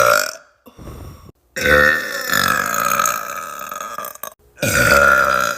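A woman burping loudly on purpose. One burp trails off at the start, a faint short sound comes about a second in, then a long drawn-out burp of nearly three seconds, and another loud burp starts near the end.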